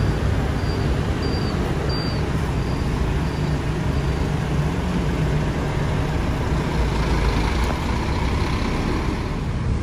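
Diesel engine of a large sleeper coach running steadily as the coach pulls away and turns into the street, over general traffic noise. Faint short high chirps repeat about every two-thirds of a second during the first few seconds.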